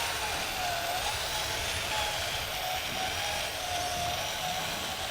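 A small electric motor whining in a radio-controlled model truck or construction machine, its pitch rising and falling slightly as the throttle changes, over a steady hum.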